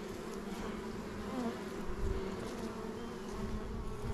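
Honeybees buzzing in a steady hum over an opened hive, with the pitch of single bees bending up and down as they fly close past.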